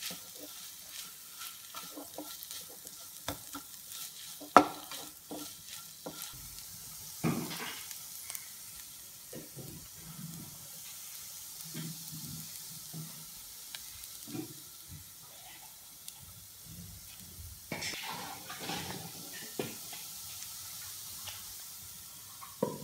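Shredded chicken and onion masala frying in a nonstick pan, sizzling steadily while a spatula stirs and scrapes it through the pan. There are scattered scrapes and light clicks, with one sharp knock about four and a half seconds in.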